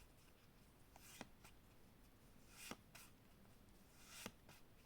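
Faint swishes of Flesh and Blood trading cards sliding against each other as they are flipped through by hand, three times about a second and a half apart.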